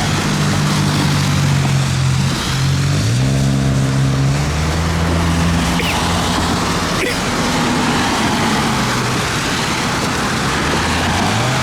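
Steady storm hiss of rain and wind, with a motor vehicle's engine humming underneath; the hum changes pitch about three seconds in and again near the end.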